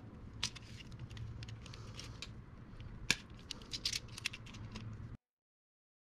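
Light plastic clicks and snaps from the Porsche 997 dash switch panel being handled and unclipped, with a few sharper snaps around three and four seconds in. The sound cuts off suddenly about five seconds in.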